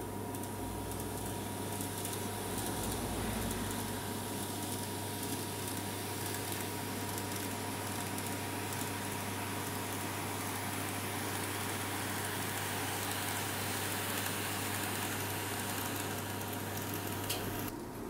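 KATO N gauge model train running on the layout's track: a steady whir and rolling rumble with a constant low hum, dipping briefly near the end.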